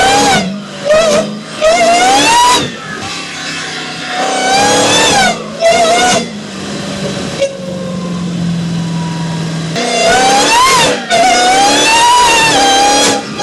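Supercharged Dodge engine revved in repeated blips, its supercharger whine rising and falling with the revs. It settles to idle for a few seconds in the middle, then is held up in one longer rev near the end.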